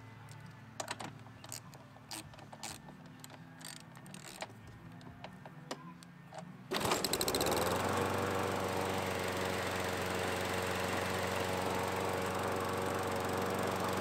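Scattered light clicks from handling the mower's front wheel, then, about two-thirds of the way in, the Craftsman mower's 7 hp Briggs & Stratton engine comes in suddenly. It rises briefly in pitch and settles into steady running.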